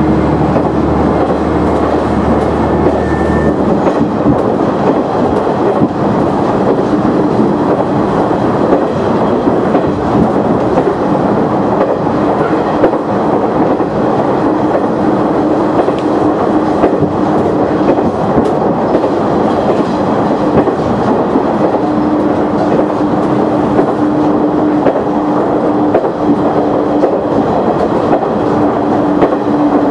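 KiHa 100 diesel railcar running along the line, heard from inside the cab: a steady engine drone under dense running noise, with wheels clattering over rail joints. A low hum drops away about three seconds in, and the drone grows stronger in the last third.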